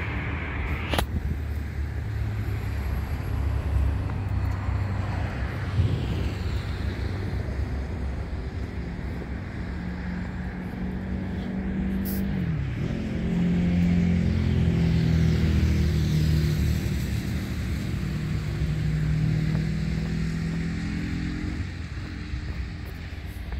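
An engine running: a steady low rumble, with a pitched engine note that comes in about nine seconds in, dips in pitch a few seconds later, holds steady and stops a couple of seconds before the end.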